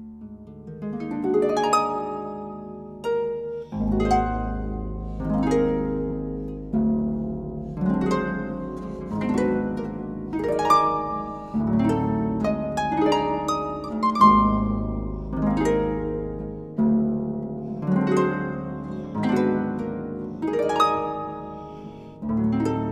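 Solo concert harp playing: plucked notes and chords in flowing phrases that swell and fade, with deep bass notes ringing underneath about four seconds in and again about fourteen seconds in.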